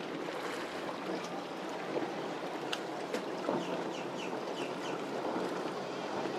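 Center-console boat's outboard engine running at speed through rough inlet chop, a steady drone under the wash of spray, waves and wind. A few short, high, falling chirps sound in the middle.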